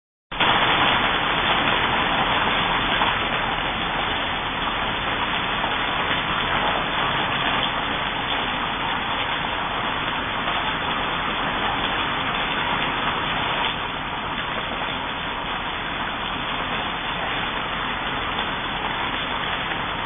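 A steady, even hiss, slightly quieter from about 14 seconds in, with no bird calls or song.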